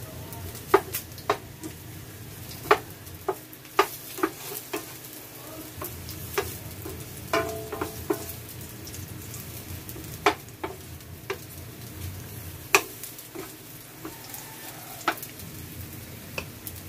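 Garlic cloves sizzling in oil in a nonstick frying pan, while a wooden spatula stirs them and knocks against the pan in irregular sharp clicks.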